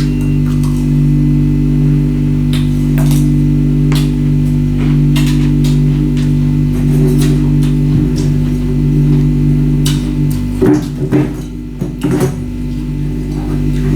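Background music with sustained low tones, over which come sharp, irregular crunches of ice being bitten and chewed, bunched together about ten to twelve seconds in.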